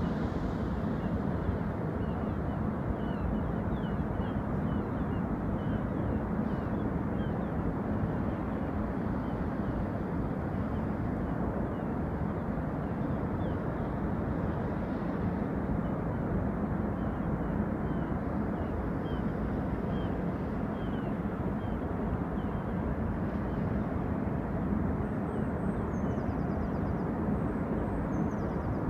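Steady low rumbling roar of a distant snow avalanche, with faint high chirps scattered over it.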